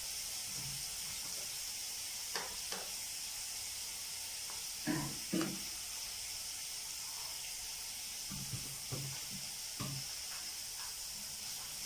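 Diced onion with ginger, garlic and green chilli paste sizzling steadily in hot oil in a non-stick pan over a high gas flame.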